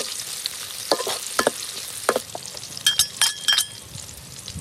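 Sliced garlic, shallots, chillies and lemongrass sizzling in a steel wok, with a metal spatula scraping and clinking against the pan. A few sharper ringing clinks come close together about three seconds in.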